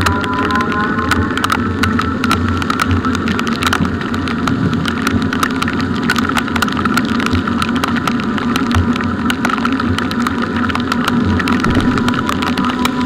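Electric bike ridden through heavy rain: raindrops ticking on the microphone over the hiss of tyres on the wet road, with a steady motor whine underneath.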